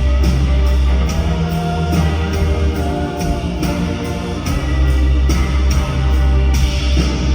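Rock music with drums, bass and guitar, a steady beat of about two hits a second.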